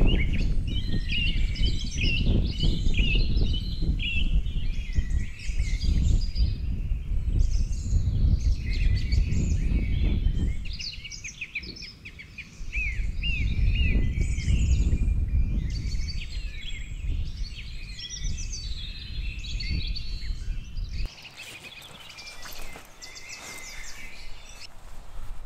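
Many small songbirds chirping and singing together over a strong, uneven low rumble of wind on the microphone. The wind rumble cuts out abruptly near the end, leaving the birdsong.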